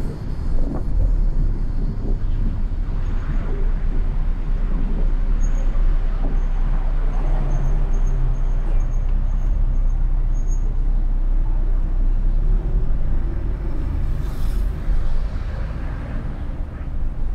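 Car driving slowly through city traffic: a steady low rumble of engine and tyre noise, with other traffic around.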